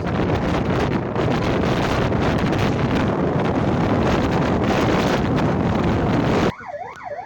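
Loud wind buffeting the microphone of a camera riding in a moving vehicle. It cuts off abruptly near the end and a siren takes over, wailing up and down about twice a second.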